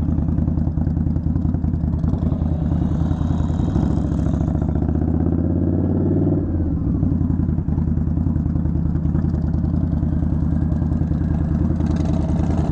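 Harley-Davidson Low Rider S V-twin running under way in traffic. Its pitch rises as it accelerates from about four seconds in, then drops off sharply a couple of seconds later and settles back to a steady run.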